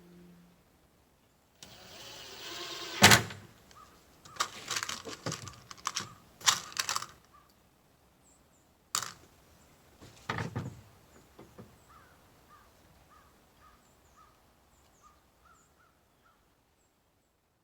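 Cordless drill-driver motor running for about a second and a half while driving a hinge screw, ending in a sharp click. Then a series of knocks and clicks as hardware and tools are handled, with faint bird chirps near the end.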